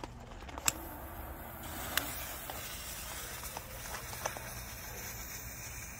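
Black Cat Neon Master Missile's fuse burning with a steady faint hiss and a few small crackles, setting in about a second in.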